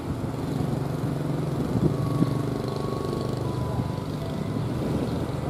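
Diesel locomotive approaching head-on, its engine running with a steady low drone that grows slightly louder.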